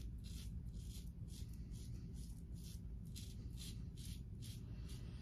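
Henson safety razor with a Feather double-edge blade scraping through lathered stubble on the upper lip in short, quick strokes, about two a second.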